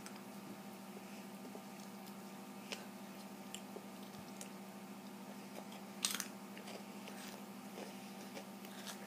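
Quiet chewing of a small piece of dark, dried food, with a few soft clicks and crunches, the clearest about six seconds in, over a faint steady hum.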